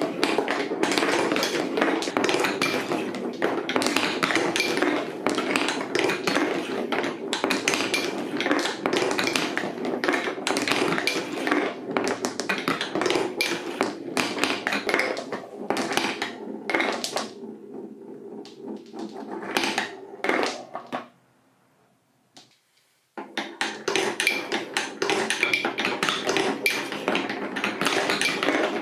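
Many balls rolling and clattering down a chain of TrixTrack wave-slope marble-run pieces: a dense, rapid stream of clicks and taps. It thins out to a few stragglers and stops about two-thirds of the way in, and after a short silence a new dense run of clattering starts.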